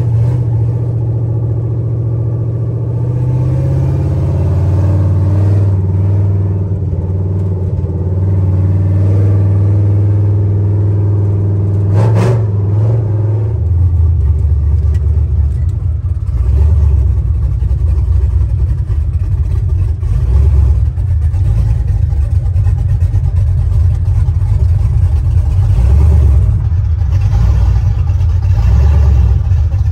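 Square-body GM pickup's engine running, heard from inside the cab as the truck drives slowly. About twelve seconds in there is a short sharp knock, and after it the engine note drops lower and goes uneven.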